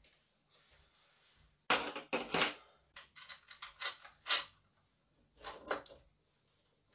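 Metal parts of a 3D printer's gantry frame knocking and clicking as it is handled and seated during assembly: a cluster of knocks about two seconds in, a run of quicker clicks over the next couple of seconds, and two more around five and a half seconds in.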